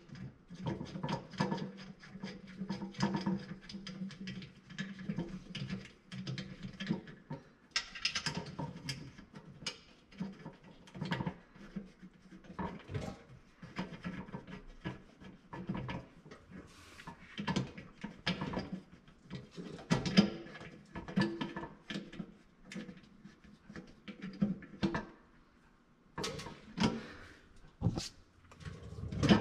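Irregular clicks, taps and knocks from hand work on a Bennett trim tab actuator and its metal fittings against the aluminium trim tab, with a short pause near the end.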